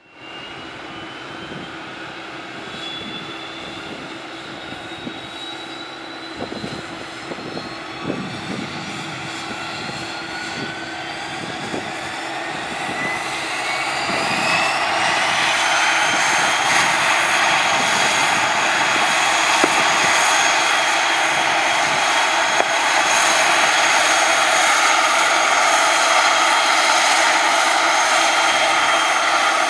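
Turboprop engine of an ATR 72-600, a Pratt & Whitney PW127M, spooling up during engine start. A whine rises steadily for about fifteen seconds and grows louder, then holds at a steady pitch with propeller noise, over a constant low hum.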